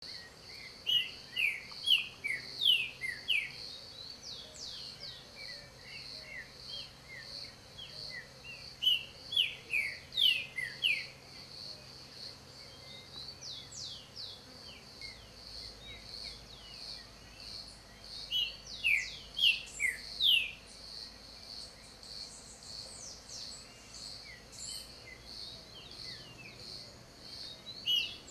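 Green-winged Saltator singing: three bursts of loud, short falling whistles, each a few seconds long, with a fourth starting at the end. Under the song runs a steady, evenly pulsing insect trill.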